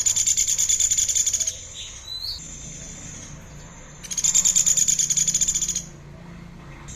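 A songbird singing: two fast, high, buzzing trills of about a second and a half each, with a short rising whistle between them.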